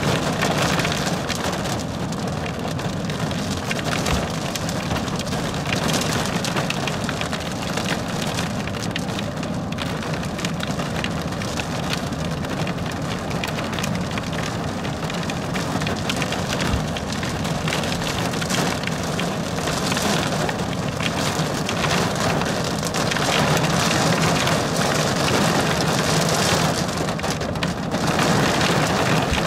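Heavy thunderstorm rain drumming on a car's roof and windshield, heard from inside the car as a dense, steady patter of drop impacts. It grows a little heavier in the last few seconds.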